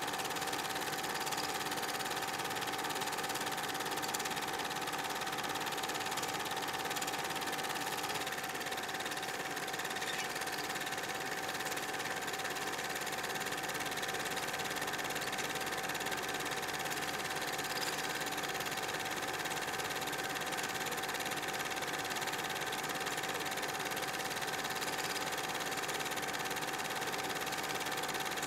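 8 mm film projector running: a steady mechanical whirr with a constant hum-like tone, unchanging throughout.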